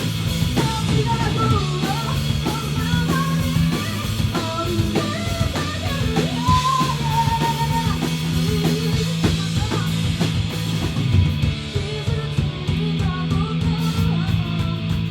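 A three-piece rock band playing live: electric guitar and drum kit over sustained low chords, with a wavering melody line above.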